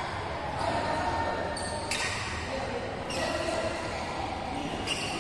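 Badminton rackets hitting a shuttlecock in a doubles rally: several sharp hits spaced about a second or more apart, each echoing in a large indoor sports hall.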